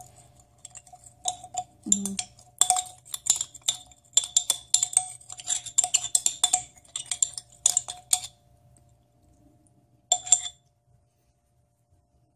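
A spoon clinking and scraping against the inside of a crab-paste bottle, digging out the last of the paste. The quick clinks run for about seven seconds, then one more short clatter comes after a pause.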